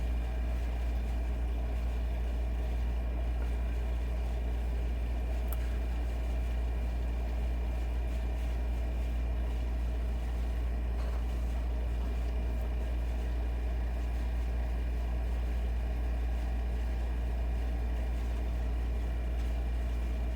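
A steady low hum, with a couple of faint clicks.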